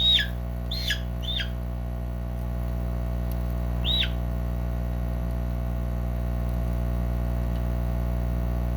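A hen giving short, high squawks that each drop in pitch: three in the first second and a half, then one more about four seconds in. A steady low hum runs underneath.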